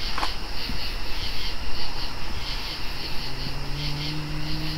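Crickets chirping at night in a steady pulsing chorus, over a low rumble. A low steady hum comes in about three seconds in.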